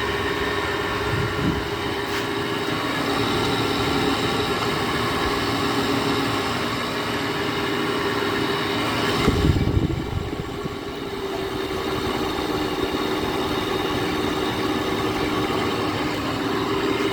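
Window air conditioner running with a loud, steady noise from its Broad Ocean fan motor. The motor's bearing is failing; the owner takes it for the back bearing. A brief thump about nine and a half seconds in.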